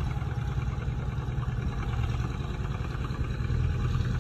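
Old tractor's engine running steadily with a low note as the tractor crawls forward through a pile of loose dirt.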